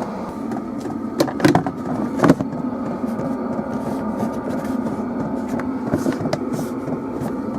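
Chinese diesel heater running with a steady hum, with a few knocks about one to two and a half seconds in.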